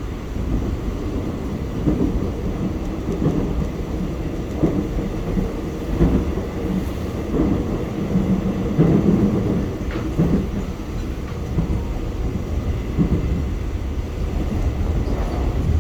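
Electric subway train running, heard from inside the car: a steady low rumble with irregular thumps and clacks of the wheels on the rails.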